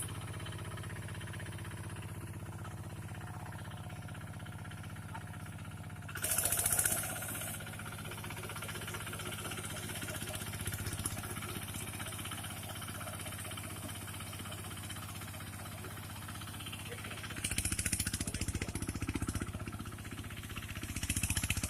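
Engine of a rice harvesting machine running steadily, with a brief louder hiss about six seconds in and louder, pulsing running near the end.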